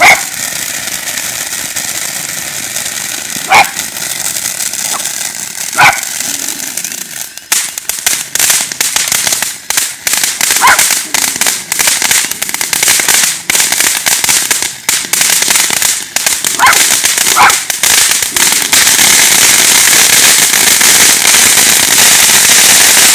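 A dachshund barks a few times. From about seven seconds in, a ground fountain firework crackles with rapid sharp pops while the dog barks a few more times over it. Near the end the fountain settles into a loud, steady hiss of spraying sparks.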